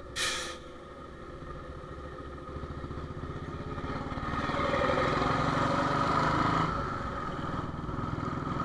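Royal Enfield Bullet's single-cylinder engine running on the move, pulling louder from about three seconds in and easing off near seven seconds. A short sharp clatter just after the start.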